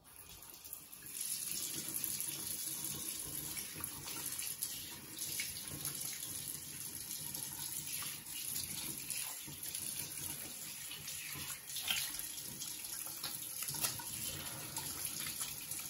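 Bathroom sink faucet turned on, water running steadily into the basin from about a second in, with splashes now and then as water is scooped up in cupped hands and splashed onto the face.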